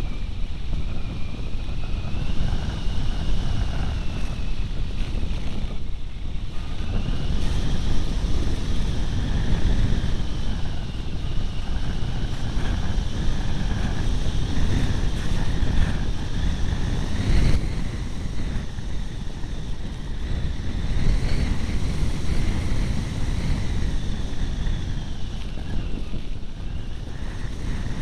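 Rushing airflow buffeting the onboard camera's microphone on an RC glider in flight: a steady, rumbling wind noise. A faint whine drifts up and down in pitch above it.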